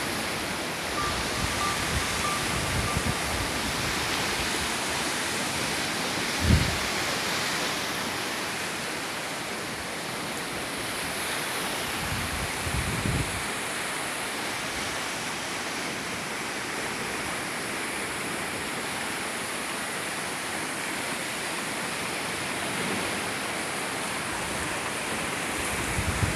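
Steady wash of waves on the shore of a reservoir, with wind buffeting the microphone in a few low gusts.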